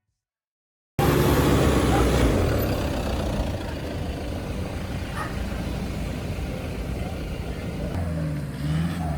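Motor vehicle engine running hard under a heavy rushing noise, starting abruptly about a second in; near the end the revs rise and fall a couple of times.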